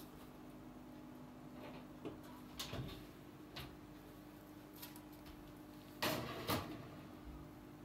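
Oven being loaded and shut: a few light clacks of a metal tray and oven parts, then two louder knocks about half a second apart around six seconds in, over a steady low hum.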